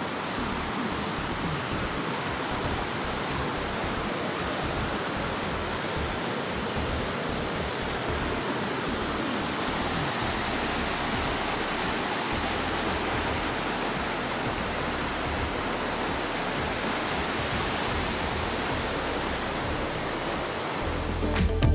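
Rushing creek water, a steady even hiss. Music with a beat cuts in near the end.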